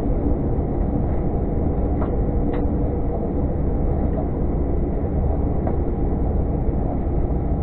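Airbus A319 cabin noise while taxiing: the engines run with a steady hum of several held tones over a low rumble, with two faint ticks a couple of seconds in.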